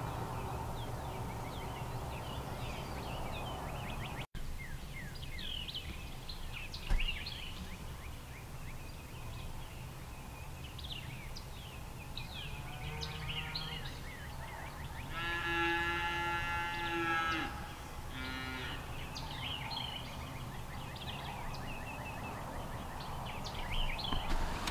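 A cow moos, one long call about two-thirds of the way through with a short call right after it and a fainter one just before. Birds chirp throughout, and there is a single sharp knock about seven seconds in.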